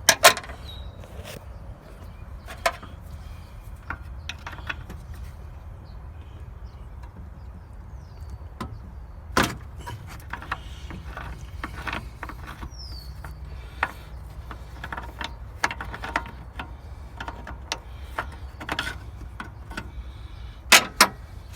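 Irregular metal clicks and clinks of pliers working on the radiator hose fittings, with sharper knocks about half a second in, about nine seconds in and twice near the end, over a steady low rumble.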